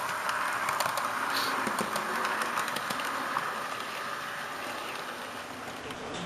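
HO-scale model electric train running past on its track: a steady whirring with rapid clicks from the wheels, fading as it moves away.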